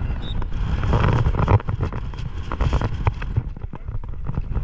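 Strong wind buffeting the microphone: a loud, steady low rumble with scattered sharp crackles.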